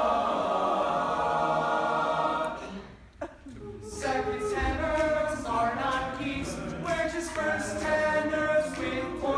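Men's a cappella choir singing in close harmony: a held chord that dies away about two and a half seconds in, a brief pause, then the voices come back in with a quicker, rhythmic passage of shifting chords.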